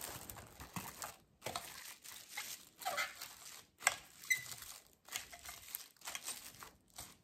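Plastic cling film crinkling as it is stretched over a stainless steel mixing bowl and pressed down around the rim: a run of irregular crackles and rustles.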